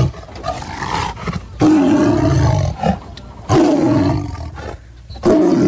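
Tiger roaring: a short roar right at the start, then three long roars about two seconds apart.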